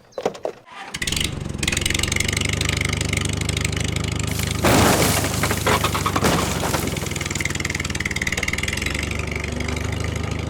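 An engine starts about a second in and runs at a steady idle. Around the middle there is a louder, rougher stretch.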